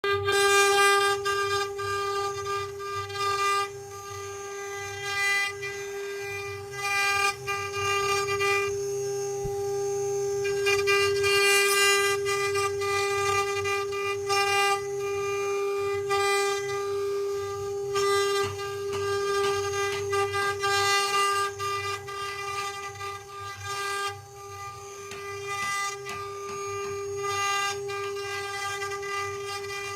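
CNC wood-carving router spindle running with a steady high whine, with intermittent rasping cutting noise.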